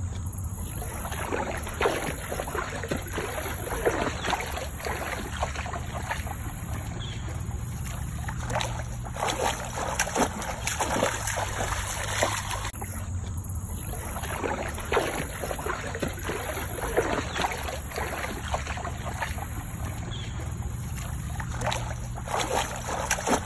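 Water splashing and sloshing as a golden retriever swims and wades through shallow lake water. The splashes come frequently and irregularly over a steady low rumble.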